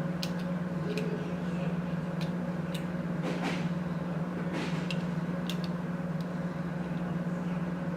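Small screws and nuts being tightened by hand on a mounting plate: scattered light clicks of the tool and metal parts, with a couple of short scrapes around the middle. A steady low hum runs underneath throughout.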